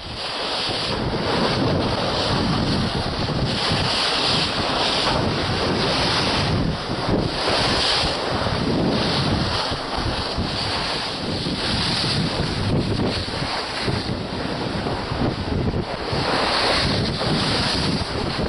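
Wind noise on the microphone over rushing water, as heard aboard a moving boat, with gusts that rise and fall every second or so.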